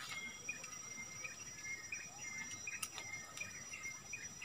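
Tropical riverbank ambience: a steady high-pitched insect buzz with repeated short chirping calls over it, and a few faint clicks.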